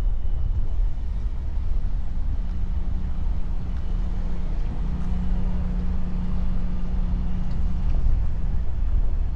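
A car driving slowly, heard from inside: a steady low rumble of engine and tyres, with a low hum joining in about two seconds in and fading near the end.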